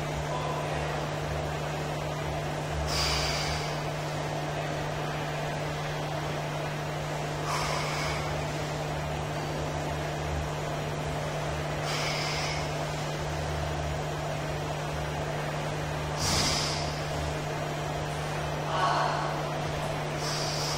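A man's short, forceful breaths, about five in all, one every four to five seconds, in time with reps of barbell good mornings. A steady low hum runs underneath.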